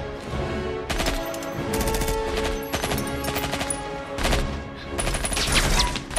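Film action mix: rapid gunfire and sharp hits in repeated clusters over a music score.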